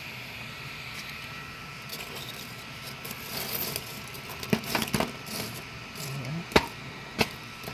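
Lumps of charcoal clicking and cracking in a stove as the fire is fanned to catch: a few sharp cracks over a faint steady hiss, with a brief rush of air near the middle.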